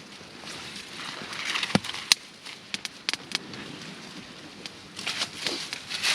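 Pine boughs rustling as they are handled and laid into a bough bed, with a sharp snap just before two seconds in and a few quick cracks soon after.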